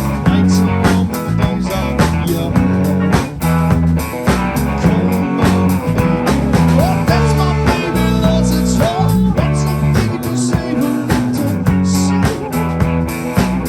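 Blues-rock band music with electric guitar, bass and drums, and a steady beat.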